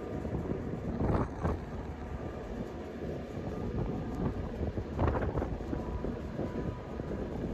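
Passenger train running, heard inside the carriage as a steady low rumble of wheels and car body. Two short, louder surges come about a second in and about five seconds in.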